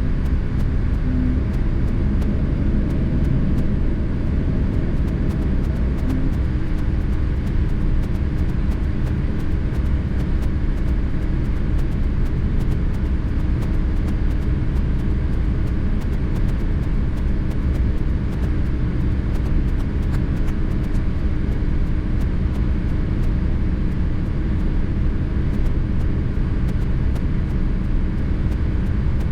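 Steady, loud low rumble of a Boeing 787-10 Dreamliner heard in the passenger cabin as it lands.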